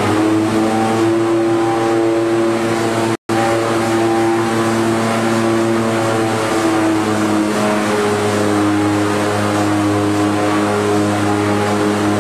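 Steady hum and drone of a corrugated cardboard production line's machinery, several even tones held together, their pitch shifting slightly about two-thirds of the way through. The sound drops out for a split second about three seconds in.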